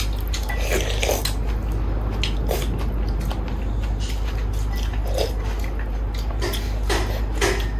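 Eating at the table: wooden chopsticks and a metal spoon clicking and scraping against a ceramic soup bowl, with chewing in between. A steady low hum runs underneath.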